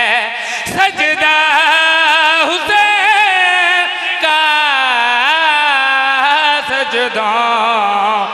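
A man's voice singing a melodic devotional recitation in the style of a Shia zakir's majlis, with long held notes that waver and bend in pitch and only brief breaks between phrases.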